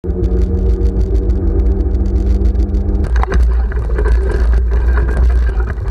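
Zaxboard Avatar electric scooter ridden along a wet path: heavy wind rumble on the microphone with a steady hum. About three seconds in this changes to rougher tyre noise and splashing as it runs through a puddle.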